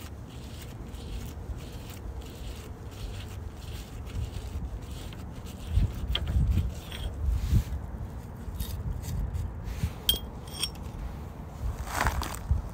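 Metal trailer-hub parts handled by a gloved hand: scraping and light clinks as the spindle nut and outer wheel bearing are worked off the axle spindle, with a few sharp clinks about six seconds in and again near ten seconds, over a low rumble.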